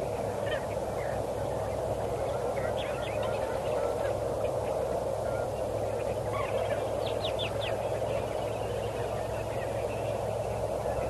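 Short high bird chirps in small scattered clusters, the busiest about two-thirds of the way in, over a steady low hum.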